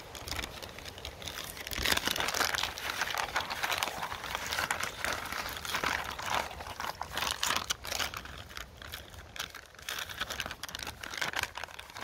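Plastic MRE drink bag crinkling as it is squeezed and shaken to mix the drink powder with water, a dense run of plastic crackles from about two seconds in.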